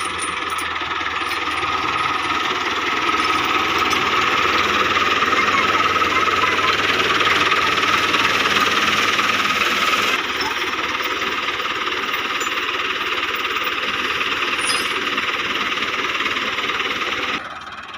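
Dabang 85 tractor's engine running loudly and steadily, a little quieter from about ten seconds in, then dropping away sharply near the end.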